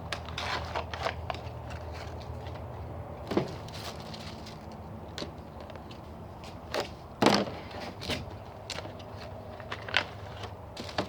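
Plastic packaging of HeroClix figure booster packs rustling and clicking as the packs are handled and opened: irregular sharp crackles and clicks, the loudest about seven seconds in, over a steady low hum.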